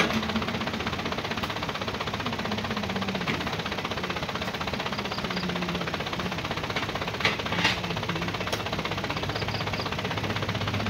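Light truck's engine idling steadily with a fast, even clatter. A few short thuds in the second half as oil palm fruit bunches are thrown into the truck bed.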